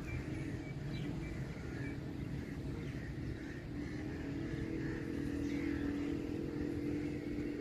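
A distant engine hums steadily over a low outdoor rumble, its drone growing stronger from about four seconds in.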